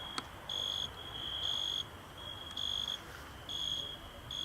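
Crickets chirping: a high, steady trill that comes in pulses of about half a second, roughly one a second. A single sharp click sounds near the start.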